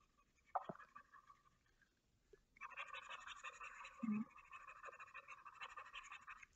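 Faint scratchy rubbing of a computer mouse being dragged across the desk or mouse pad, which starts about two and a half seconds in and keeps on in quick fluttering strokes. There is a small click near the start and a soft low bump about four seconds in.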